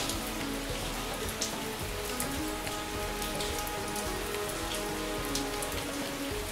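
Steady rain falling into a puddle: an even hiss of many drops, with single drop clicks standing out. Soft, calm music holds long sustained notes underneath.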